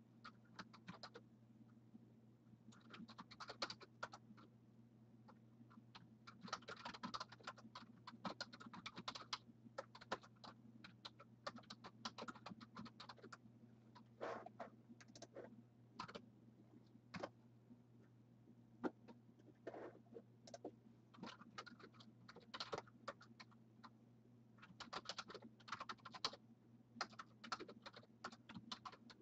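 Faint typing on a computer keyboard: quick bursts of key clicks with short pauses between them, over a steady low electrical hum.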